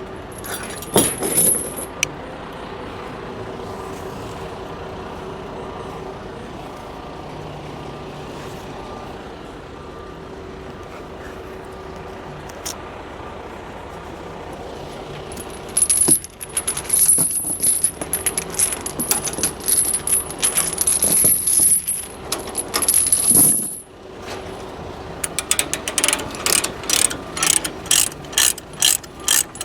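A diesel engine runs steadily while a tracked excavator is unloaded. From about halfway, a high metallic squeal and loud, uneven clanking come in. Near the end there is a quick, regular ratcheting clicking, about three to four clicks a second.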